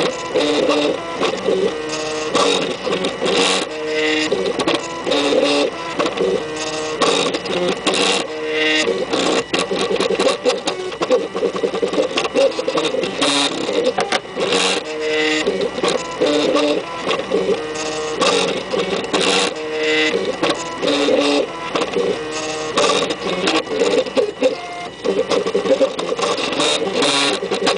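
Stepper motors of a kit-built MakerBot 3D printer whining as the extruder and platform move during a print. The pitch changes from move to move, with many short ticks between moves.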